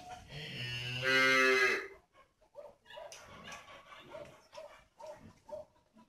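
A long, low animal call lasting about a second and a half, followed by a run of short, soft calls.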